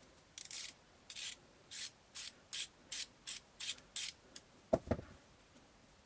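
About nine short rubbing strokes in a row, coming quicker as they go, like something being scraped or sanded by hand. Two dull knocks follow near the end, and they are the loudest sounds.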